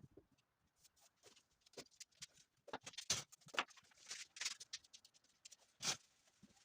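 Faint, irregular scratching and rubbing strokes with scattered small clicks, the loudest stroke near the end.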